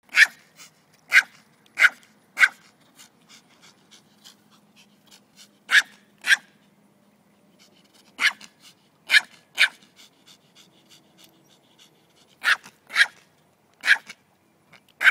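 Yorkshire terrier yapping: about a dozen short, sharp, high-pitched barks at uneven intervals, often two in quick succession.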